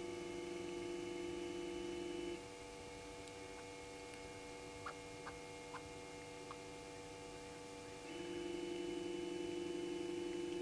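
Electrical hum of several steady tones, with a louder buzzing set of tones that cuts off abruptly a little over two seconds in and switches back on about eight seconds in. A few faint clicks sound in the quieter stretch between.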